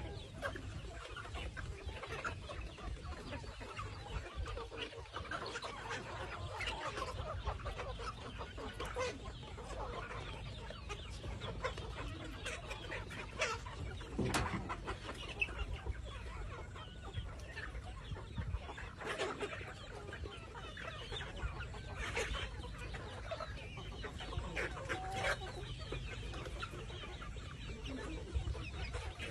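A flock of chickens, hens and roosters together, clucking and calling steadily, with a few louder sharp sounds scattered through.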